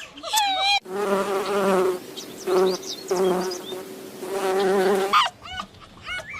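A flying insect buzzing for about four seconds, a steady drone that swells and fades. A few high chirps come just before it and again after it.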